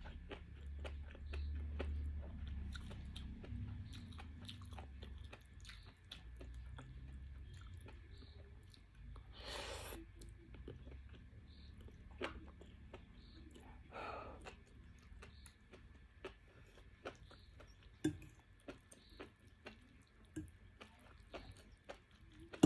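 Close-up chewing of enoki mushrooms and noodles, with wet mouth sounds and many small clicks, and two longer slurps about ten and fourteen seconds in. A few sharp clinks of a metal fork against the glass bowl come later on.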